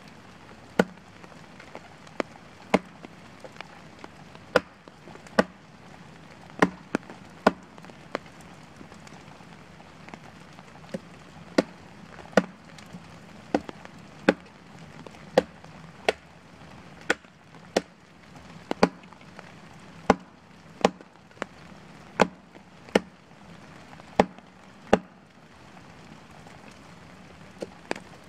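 Hatchet chopping into a felled pine log: repeated sharp blows, about one a second, pausing for a few seconds about eight seconds in and again near the end.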